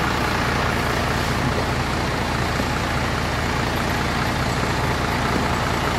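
Bus engine idling, a steady low rumble.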